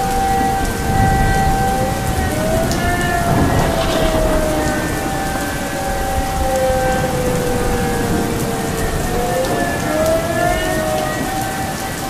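Several air raid sirens sounding at once. One holds a steady tone while others slowly rise and fall in pitch, crossing each other. Under them is steady rain with low rumbles of thunder.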